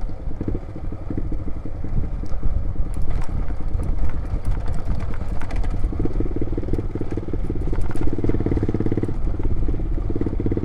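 Loud motorcycle exhaust running as the bike is ridden, a rapid train of engine firing pulses that grows louder and fuller about six seconds in.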